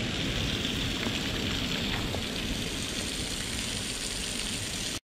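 Small waterfall spattering down a rock face: a steady hiss of falling water.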